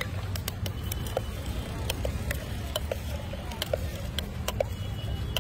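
A steel spoon clinking and scraping inside a stainless-steel tumbler as a dry chickpea-and-peanut snack mix is stirred, with irregular metallic clinks a couple of times a second, some briefly ringing. A steady low rumble of street traffic runs underneath.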